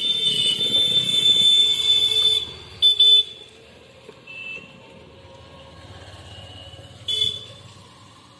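Vehicle horn honking: one long, loud, high-pitched honk that cuts off about two and a half seconds in, then two short toots, one about three seconds in and one about seven seconds in.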